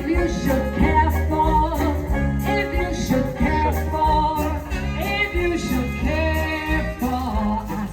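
Upbeat music with a steady bass line and a melody on top.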